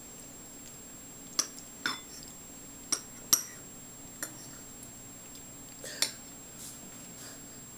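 About six short, sharp clicks and taps spread over several seconds as a toddler is spoon-fed at a table, over a steady faint hum.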